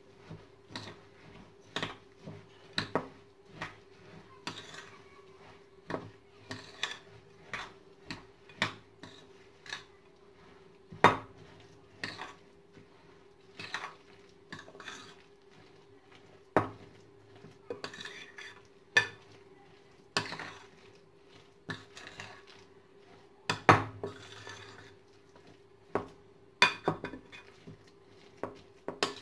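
Metal spoon clinking and scraping against a glass mixing bowl while stirring a thick mix of mashed banana, oats, chocolate and honey. The clinks come irregularly, one or two a second, with a few louder knocks.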